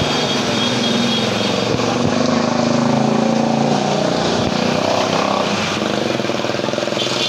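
Street traffic passing close by: the engines of cars and motorcycles running, swelling to a peak about three seconds in as vehicles go past, with engine pitch shifting as they pass.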